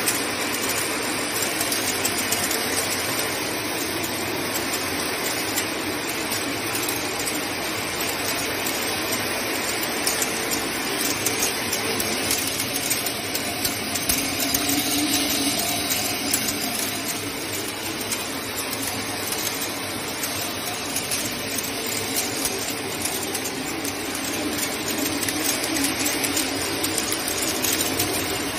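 Spiral automatic stone bead milling machine running steadily as a wet grinding mix: water running and stone beads rattling and clicking, with the machine's drive running beneath.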